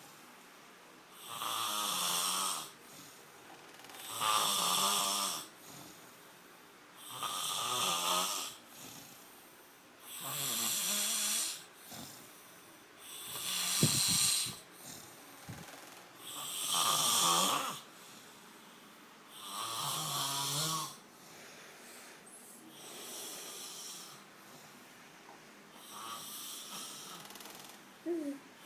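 A sleeper snoring loudly and rhythmically, with about nine long, rasping snores roughly three seconds apart. The last two snores are fainter, and there is a sharp click about halfway through.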